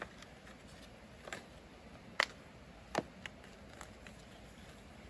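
Fox Proframe full-face mountain bike helmet being handled and pulled on: a few short clicks and taps, the two sharpest about two and three seconds in.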